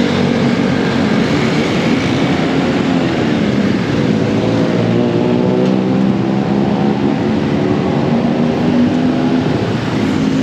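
Street traffic: motor vehicle engines running close by, with a steady low hum over a general road noise.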